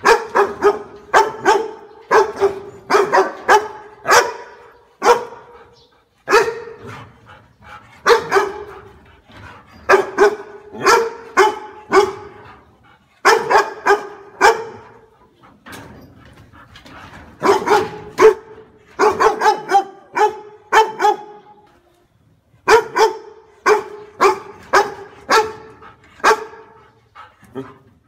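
A dog barking over and over in quick runs of several sharp barks, with short pauses between the runs.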